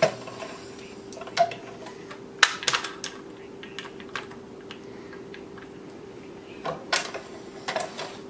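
Racquet stringing machine being worked by hand: sharp clicks and light rattles of the string clamps and tension head as string is pulled and tensioned, coming in irregular clusters over a faint steady hum.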